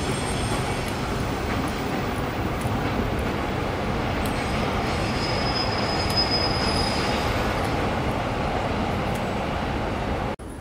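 Electric commuter train running over an elevated railway viaduct, a steady rumble with a high wheel squeal for a few seconds in the middle. The sound drops out suddenly just before the end.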